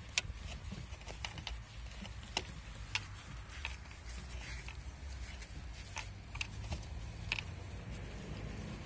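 Gloved hands working on a turbo air-intake hose and its fittings: a series of small, irregular clicks and knocks over a steady low background rumble.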